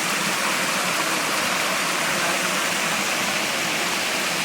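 Steady rush of falling water from a waterfall, an even hiss without breaks.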